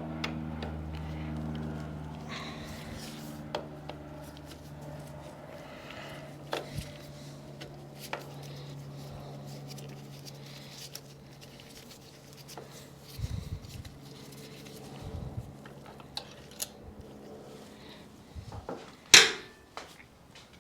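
Scattered clicks, taps and clanks of tools and parts being handled on a motorcycle, with a sharp knock near the end, over a low steady hum that fades away.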